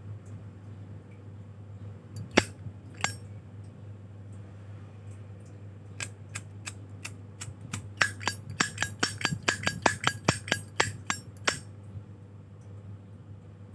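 Zippo lighters clinking and clicking as they are handled: two sharp metallic clicks, then a quick run of clicks over several seconds.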